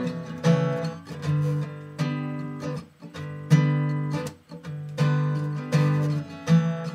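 Acoustic guitar strumming chords, a few strokes a second, in an instrumental break between sung lines of a song.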